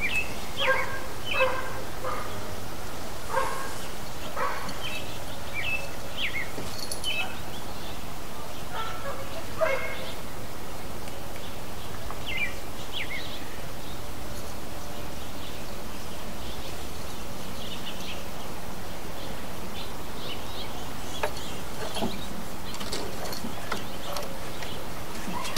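Outdoor ambience: a dog barks in short bursts, several in the first few seconds and again about ten seconds in. Birds chirp on and off throughout.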